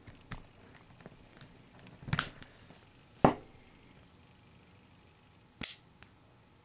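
Clicks and a short rattle from handling an old padlock and its key: a rattle about two seconds in, a sharp click a second later, and another click near the end.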